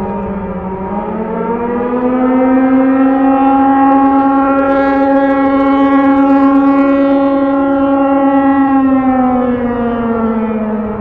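Emergency alarm siren in the style of a civil-defence air-raid siren, sounding one slow, low-pitched wail: it rises about a second in, holds steady for several seconds, then falls near the end.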